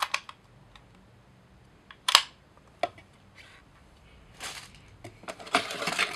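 Sharp plastic clicks and knocks as a Canon battery charger is handled, with a loud single click about two seconds in, then rustling of plastic packaging near the end as a hand reaches into the box.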